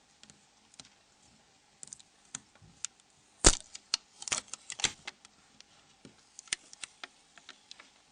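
Irregular small clicks and taps from handling the Nokia 6125's parts and tools while the dome sheet is peeled off the engine module. The loudest knock comes about three and a half seconds in, followed by a quick cluster of clicks.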